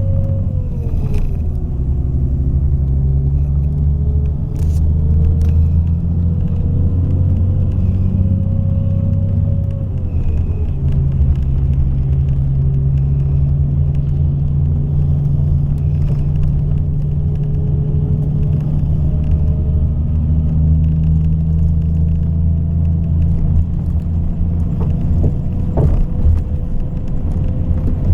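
Scania K420 coach's inline-six diesel engine running with a steady, deep rumble. A faint whine above it drops in pitch about a second in and again around ten seconds in, then slowly climbs.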